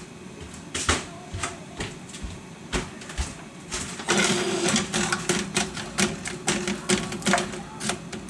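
Onion chunks crackling in hot oil in a nonstick frying pan, sparse pops at first, then from about four seconds in a denser sizzle with a steady hum under it and rapid clicks of a wooden spatula stirring them.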